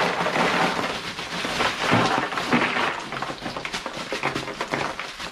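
Bagged ice cubes poured into a plastic cooler, a dense clattering rattle of cubes that thins to scattered clicks toward the end.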